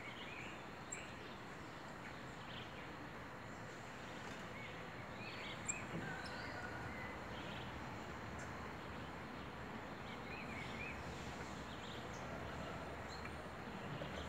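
Steady outdoor background noise with scattered clusters of short, high chirps. There is a single sharp click about six seconds in.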